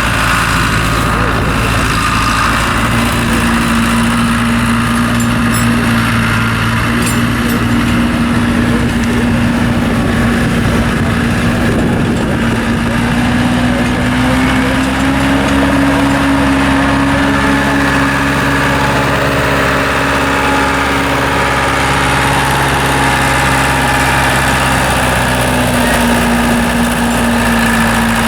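Tractor engine running steadily, its pitch rising slightly about halfway through and settling back down near the end.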